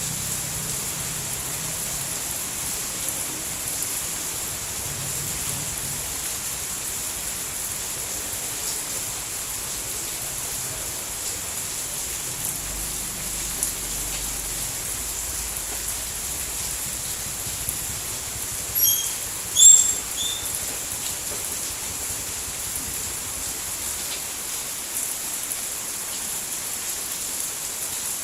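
Steady rain falling, an even hiss. A little past the middle a brief cluster of short, high sounds stands out, the loudest moment.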